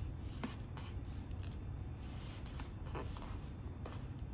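Hands wrapping and pressing a strip of masking tape around a plastic bottle rocket covered in duct tape: scattered faint crinkles and taps over a low steady background hum.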